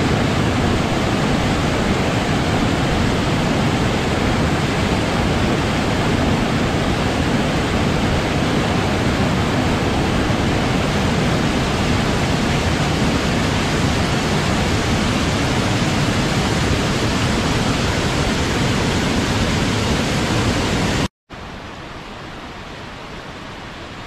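Waterfall: a loud, steady rush of falling water. About three-quarters of the way through it cuts off for an instant and gives way to a quieter, steady rush of water.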